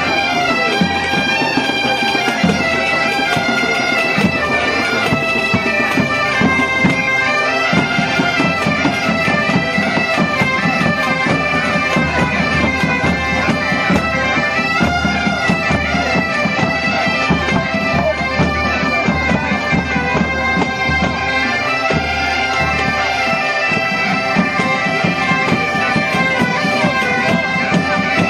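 An ensemble of Galician bagpipes (gaitas) playing a tune together in unison over their steady drone, with drums keeping the beat underneath.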